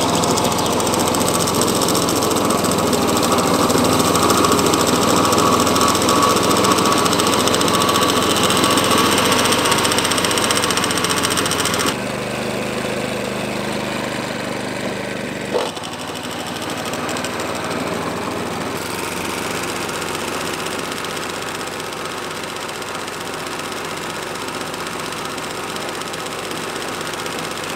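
Petrol-engined ATCO Balmoral cylinder mower running steadily while mowing, its reel freshly sharpened by backlapping. The sound drops in level and changes abruptly about twelve seconds in, and again near sixteen seconds with a short click.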